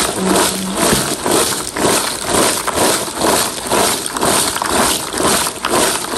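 Crisp fried fryum chips being tossed in a plastic tub, rattling and rustling against each other and the tub wall in rhythmic shakes, a little over two per second.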